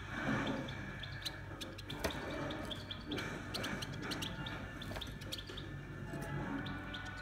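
Young European goldfinches chirping: many short, high calls scattered irregularly throughout.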